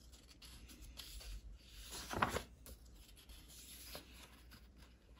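Paper pages of a large-format book being turned by hand: faint rustling, with one brief, louder swish of a page about two seconds in.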